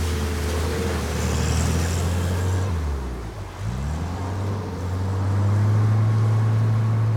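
Amphicar Model 770's rear-mounted four-cylinder engine running as the car drives off a ramp into the water, with splashing at first. About three seconds in the engine note drops and climbs again, then it runs steady and louder as the car's two propellers push it out across the lake.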